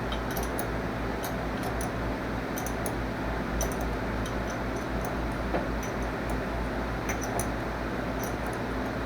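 Steady running machine noise with a low hum and scattered faint high ticks.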